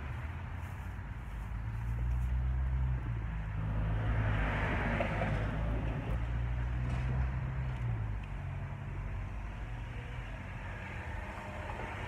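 A motor vehicle's low engine rumble swells about two seconds in and fades after about eight seconds, with a brief rush of tyre noise in the middle, like a vehicle passing on the road.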